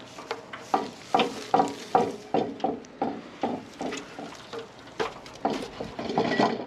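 A quick, irregular series of clinks and scrapes as a loose light-fixture globe is handled and worked off its fixture.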